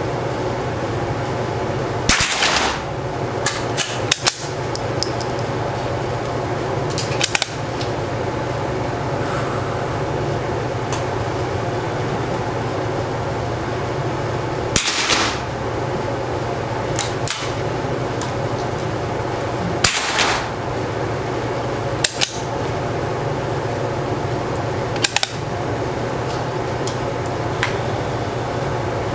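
Single shots from a small-bore .22LR target rifle, spaced several seconds apart: three loud reports with a short echo, about two, fifteen and twenty seconds in, with smaller sharp clicks and knocks between them. A steady hum runs underneath.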